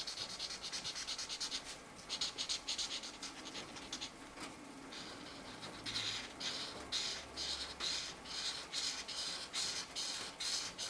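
Felt-tip marker scratching across a colouring-book page in quick back-and-forth colouring strokes, dense at first, then about two to three separate strokes a second in the second half.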